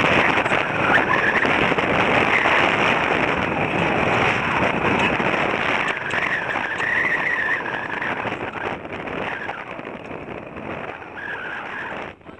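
Wind rushing over the microphone, a steady roar that eases off over the last few seconds.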